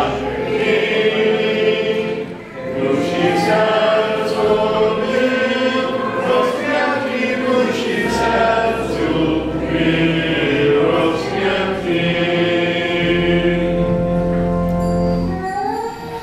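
A church hymn sung by many voices, held notes over steady low accompanying tones, ending together about half a second before the end.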